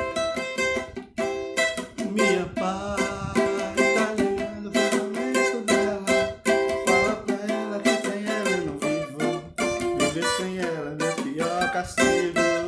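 Instrumental passage of a song played on an electronic keyboard: plucked-string-like chords with a lead melody that bends and wavers in pitch, starting about two seconds in.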